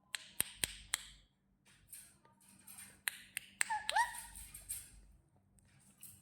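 Parrot making a string of sharp clicks, four in the first second and a few more later, with one short squeaky chirp about four seconds in.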